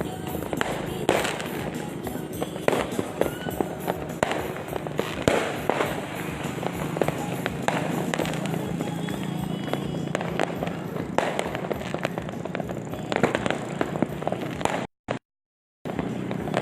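Many fireworks and firecrackers going off at once, a dense run of irregular bangs and pops over a steady background din. The sound cuts out completely for about a second near the end.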